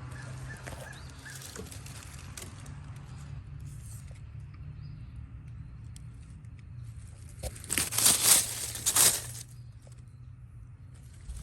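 Outdoor ambience with a steady low rumble, and a loud burst of rustling noise about eight seconds in.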